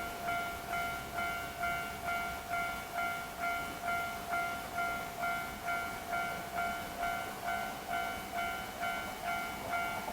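Japanese level crossing's electronic warning bell ringing, a repeating ding about two to three times a second, each strike fading before the next.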